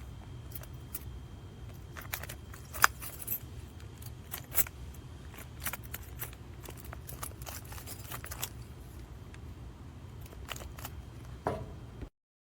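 Metal clicks and rattles of a bike U-lock and its key being turned and jiggled, with one sharp click about three seconds in, as the jammed latch refuses to go back in. A low steady hum runs underneath, and the sound cuts off suddenly near the end.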